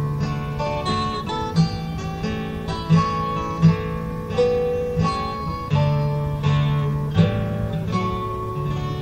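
Background music: acoustic guitar picking and strumming a melody.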